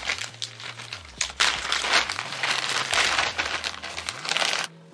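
Packaging crinkling and rustling as a packed wig is unwrapped, the crackling growing stronger about a second in and cutting off suddenly near the end.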